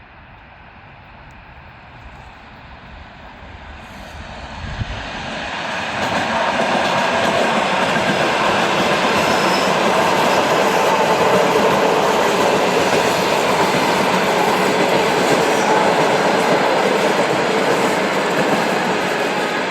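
ED4M electric multiple-unit train approaching, growing louder over the first six seconds or so, then running past close by with a loud, steady noise of wheels on rails.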